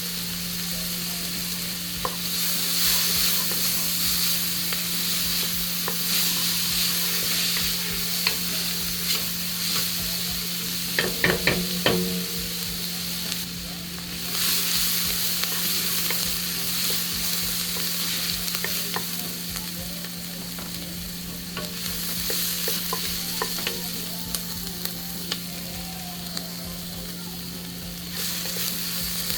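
Food sizzling as it fries in a cooking pot and is stirred with a spoon, with scattered scrapes and clicks and a short run of knocks against the pot about eleven seconds in. The sizzle swells and eases as it is stirred.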